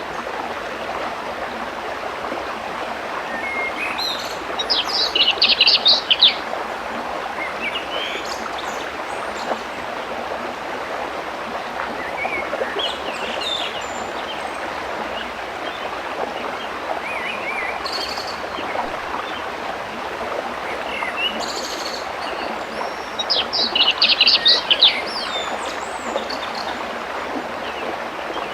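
Steady rushing of a forest waterfall, with small birds chirping over it now and then. Twice, about five seconds in and again a few seconds before the end, a bird sings a loud, rapid burst of high notes lasting a second or two.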